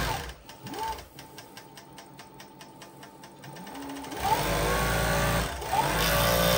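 Juki MF7523U industrial coverstitch sewing machine stitching in pedal-controlled runs, its motor whine rising in pitch as it speeds up. A quieter stretch of slow, even ticking comes in the middle, then two more fast runs near the end.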